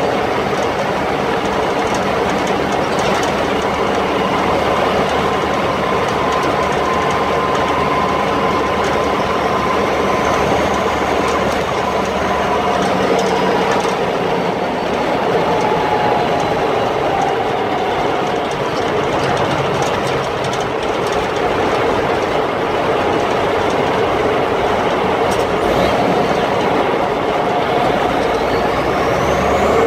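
M35A2 2½-ton army truck driving at road speed, heard from inside the cab: a loud, steady din of engine, drivetrain and tyres, with a faint whine that drifts in pitch and a higher one rising near the end.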